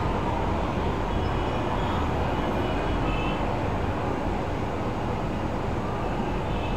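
Steady traffic noise from a busy multi-lane city road carrying buses, cars, vans and auto-rickshaws, with faint high tones now and then.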